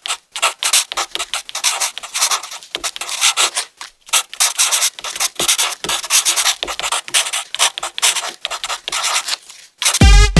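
Marker and pen tips scratching and rubbing across paper in quick, irregular strokes while lettering is outlined and coloured in.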